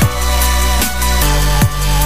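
Electronic dance music with a heavy bass line and a punchy kick about every 0.8 s.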